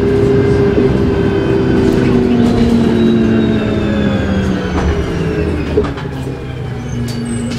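Cabin sound of a 1998 New Flyer C40LF bus under way: its Cummins Westport C Gas Plus natural-gas engine and Voith D863.3 three-speed automatic transmission give a steady drone with a whine that falls slowly in pitch as the bus slows. There is a small click near the end.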